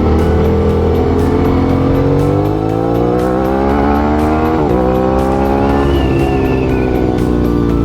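Motorcycle engine pulling hard under acceleration, its pitch climbing steadily, then one quick upshift just past halfway before it climbs again.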